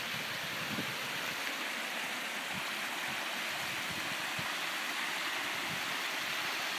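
Small stream of muddy water rushing over stones and gravel in a shallow rocky bed, a steady even rush.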